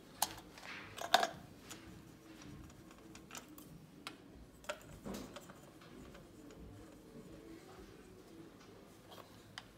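Faint scattered clicks and light knocks of a compression tester's fitting being handled at the spark plug holes of a Peugeot TU5JP4 engine's cylinder head. Two sharper clicks come in the first second and a half, then only sparse small ones.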